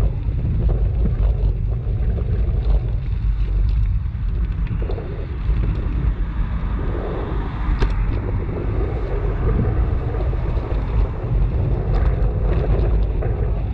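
Wind buffeting the microphone of a camera on a moving bicycle: a steady low rumble, with a short click about eight seconds in.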